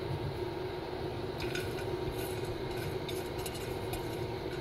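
Silicone spatula stirring and scraping chopped cashews across a dry ceramic nonstick frying pan, a light scratchy clatter starting about a second and a half in, over a steady low hum.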